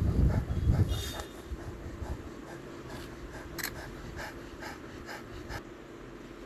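A cheetah panting hard, about three quick breaths a second, as it recovers from a sprint chase and kill. A low rumble sits under the first second, and the panting fades out near the end.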